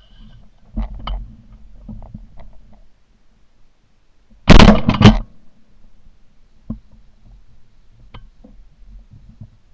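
Shotgun fired at a duck overhead, picked up by a camera mounted on the gun: a blast about four and a half seconds in, loud enough to clip, followed about half a second later by a second report. Light knocks and clicks from handling the gun before and after.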